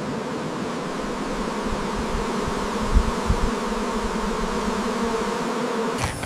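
A swarm of honey bees buzzing steadily in a dense hum, with a few low thuds near the middle. The sound changes abruptly near the end.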